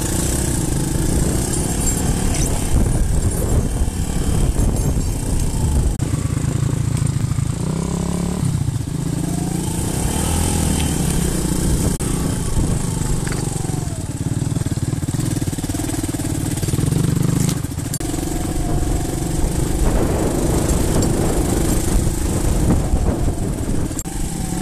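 Dirt bike engine running as the bike is ridden, its revs rising and falling with the throttle.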